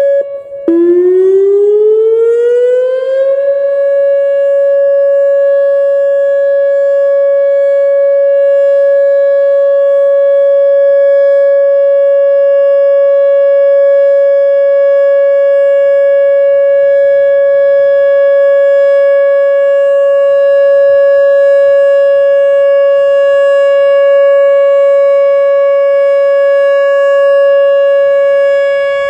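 Whelen WPS-2906 electronic outdoor warning siren sounding a loud steady tone. Under a second in it breaks off briefly, comes back low and glides up to full pitch over about three seconds, then holds steady.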